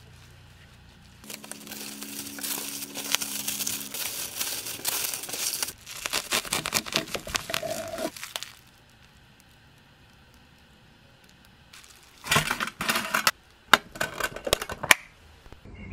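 Sandwich wrap crinkling and rustling in long stretches as it is folded and handled. After a quiet spell, a quick run of sharp clicks and knocks follows near the end, then a few single clicks as the stainless steel lunch box is handled and closed.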